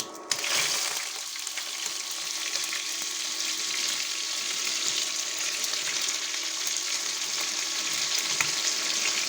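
Soy-sauce-marinated chicken pieces going into hot oil in a kadai. A click, then a sudden loud sizzle that settles into steady frying.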